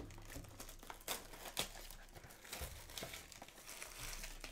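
Plastic wrapping crinkling and tearing as a trading-card blaster box is opened: an uneven run of small crackles and rustles.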